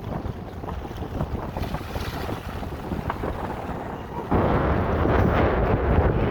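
Strong wind buffeting the microphone, jumping much louder about four seconds in.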